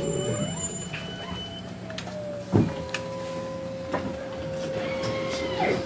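Electric city bus's drive motor whining as it creeps along, a steady high tone that shifts slightly in pitch and then holds level. A short knock from the bus body about two and a half seconds in, and a lighter one near the end.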